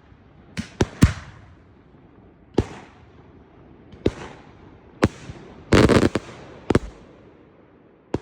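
Homemade Maltese-style cylinder firework shells going off: a string of sharp bangs at uneven intervals, several packed close together about six seconds in, each trailing off briefly.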